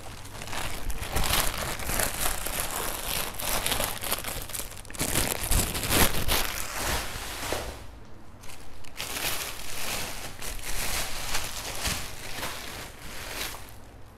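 Clear plastic bags crinkling and rustling as shoes are handled and pulled from them, with a short lull about eight seconds in.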